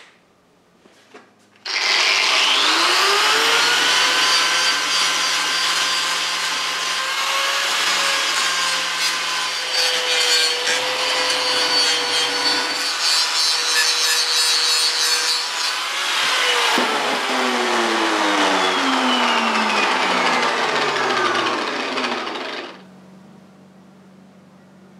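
Angle grinder fitted with a fine Scotch-Brite-type polishing disc runs up to speed about two seconds in and is worked against a rusted, chrome-plated steel motorcycle silencer, rubbing off the black chrome and debris around a rotted hole. About seventeen seconds in it is switched off, and the whine falls in pitch as the disc winds down to a stop.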